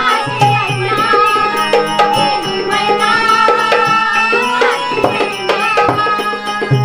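Instrumental interlude of a Marathi folk song: an electronic keyboard plays the melody over a dholki drum and small brass hand cymbals (taal) keeping a steady beat.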